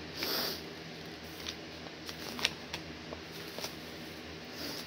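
Small packaged items being handled: a short rustle just after the start, then a scatter of light clicks and taps, over a steady low hum.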